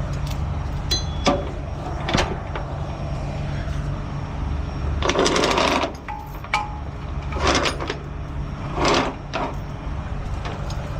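An engine idling steadily, with metal clanks and knocks of hand tools on the truck and a few short scraping noises, one near the middle lasting under a second.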